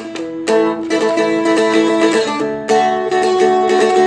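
Seagull Merlin, a four-string strumstick-style dulcimer, strummed and picked on an A chord. Strong strums come about half a second in and again near three seconds, with single notes picked between.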